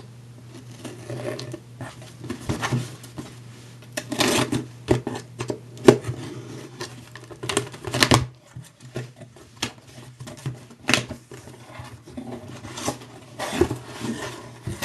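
A box and its packaging being opened and handled by hand: irregular clicks, taps and short rustles, a few louder bursts of rustling, over a steady low hum.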